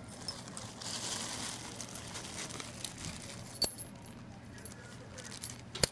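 Metal padlocks being handled: a brief soft rustle about a second in, then a few sharp metallic clinks, the loudest just before the end.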